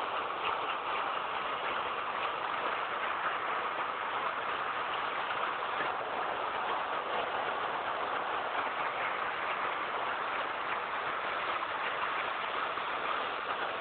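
Steady machine noise from a brewery's conveyor lines running, with faint clicks here and there.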